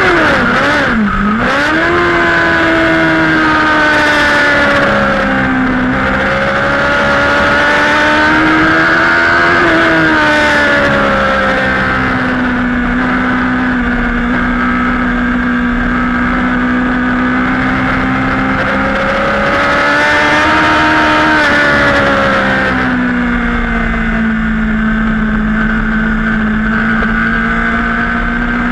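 Racing superbike's engine heard from on board the bike, over wind rush. About a second in, the engine note drops sharply as the bike brakes hard from top speed and shifts down. After that the pitch rises and falls through the corners as the rider opens and closes the throttle, holding fairly steady in between.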